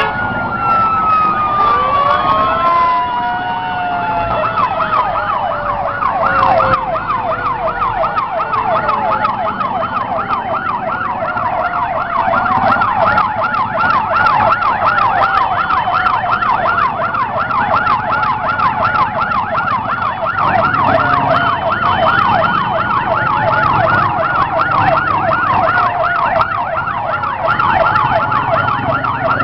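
Several emergency-vehicle sirens sounding together: a fast electronic yelp warbling up and down from about five seconds in, overlapping a slower wail that sweeps up and down. Near the start one siren winds down in pitch before the yelp takes over. A low rumble of traffic and engines runs underneath.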